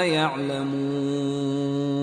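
A man chanting Quranic Arabic in melodic tajweed recitation. His voice slides down in pitch about a third of a second in, then holds one long, steady note at a verse ending.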